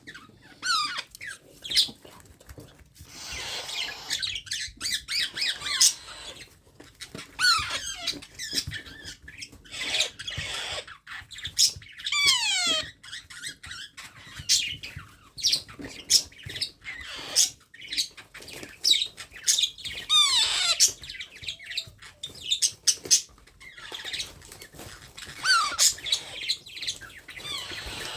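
Parrots squawking and chirping again and again, many calls sliding down in pitch, with harsher raspy calls and sharp clicks in between.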